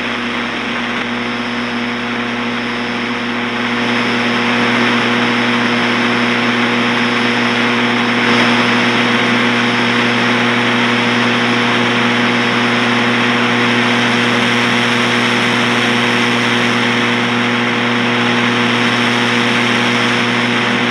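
Analog television static: a loud, steady hiss with a low, steady hum under it, growing a little louder about four seconds in.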